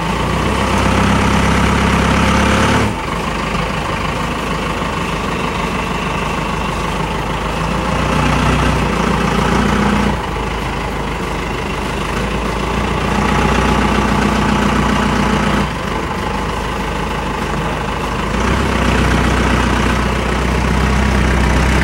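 Cummins 4BT four-cylinder turbo diesel in a 1982 Ford F-150 idling steadily, its sound swelling and easing every few seconds. It is freshly started after several days parked and running well.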